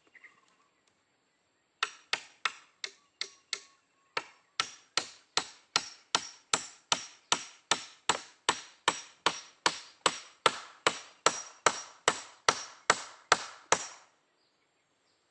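Steel hammer driving a nail into a wooden post: a steady run of sharp, ringing blows about three a second, starting about two seconds in, with a short break after the first half-dozen.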